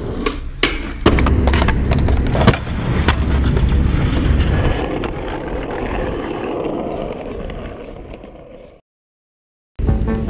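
Skateboard wheels rolling on hard ground, with sharp clacks of the board hitting the ground about one and two and a half seconds in. The rolling fades out, there is about a second of silence, and music starts near the end.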